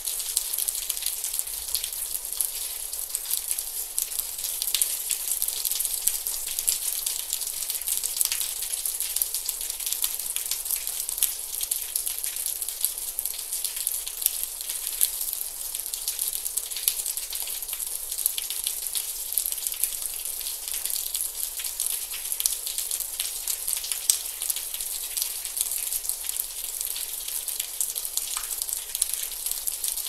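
Gentle steady rain: a dense, even hiss of falling drops, sprinkled with many small individual drop ticks, with no thunder.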